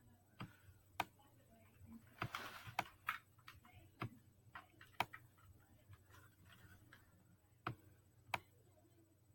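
Scattered single clicks on a Chromebook laptop, about ten of them at irregular intervals, with a short soft rustle about two seconds in.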